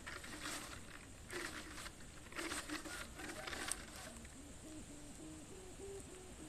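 The plastic-bladed sanu hummer on an Isan Chula kite hums in the wind; its drone steps up and down between pitches from about four seconds in. Before that come gusty rustling noises.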